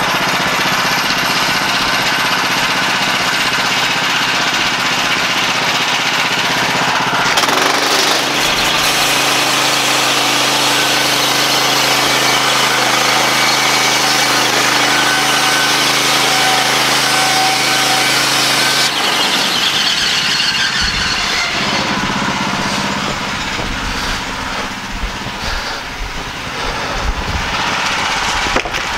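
Woodland Mills HM126 portable bandsaw mill running, its engine under load as the band blade is pushed through a log to cut a slab. The engine note shifts about seven seconds in and again around nineteen seconds, and the sound drops somewhat in the last several seconds as the head clears the log.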